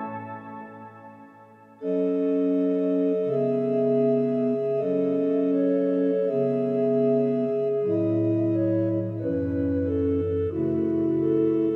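Electronic keyboard's pipe-organ sound playing slow sustained chords that change about every second and a half. The chords start about two seconds in, after a previous held chord fades away.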